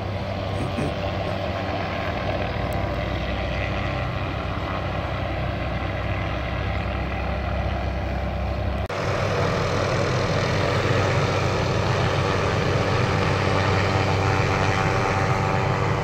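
A steady low engine drone with no pauses. Its character changes abruptly about nine seconds in.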